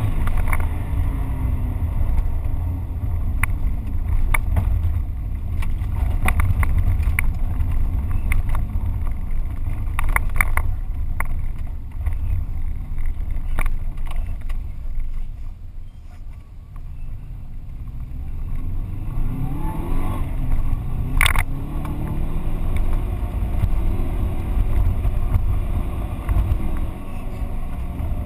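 Subaru Impreza GT rally car's engine, heard from inside the car at race pace, revving up and down through the gears with scattered sharp knocks and ticks from the road. The engine drops away for a few seconds past the middle, then climbs again in rising sweeps, with one sharp crack about three quarters through.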